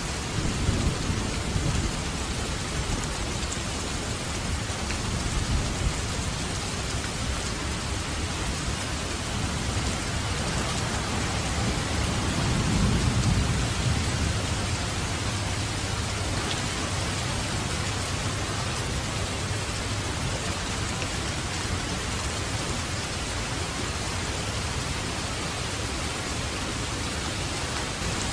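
Steady rain pouring, with low rolls of thunder swelling about a second in and again around halfway through.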